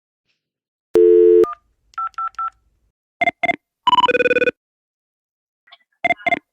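Telephone call being placed: a brief dial tone, three identical keypad beeps as 000 is dialled, then the ringing tone in repeated groups of two short bursts and a longer one.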